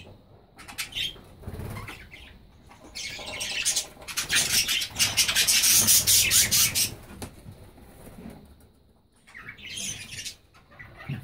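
Budgerigars flapping and fluttering their wings, with some chirping. The flapping is loudest in a dense run from about three to seven seconds in, with a smaller flurry near the end.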